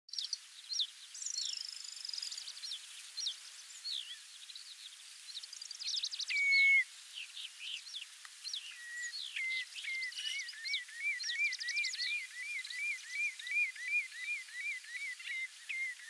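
Common redshank calling: a loud, flat piping note about six seconds in, then from about eight seconds a steady run of yodelling notes, about three or four a second. Other birds give many short, high, falling calls throughout.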